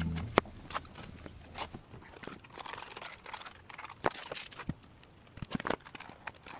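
Aluminium foil crinkling and rustling as it is handled, with a few sharp clicks and taps.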